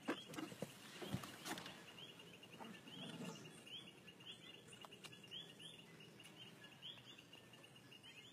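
Faint outdoor ambience of a small animal's high, rising chirp repeated about twice a second, with a few light knocks and rustles in the first couple of seconds.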